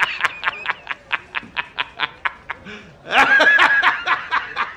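A man laughing hard in rapid ha-ha-ha pulses, about five a second, swelling into a louder, shriller stretch of laughter about three seconds in.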